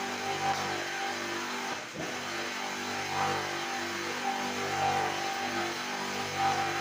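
Vibrator motor on a ten-block concrete-block press running, shaking the mould to compact the mix, with a brief dip about two seconds in.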